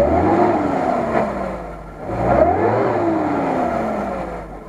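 Lada Niva (VAZ 4x4) engine revving up sharply twice, at the start and about two seconds in, with the revs sagging slowly after each blip, as the car works through deep mud and water.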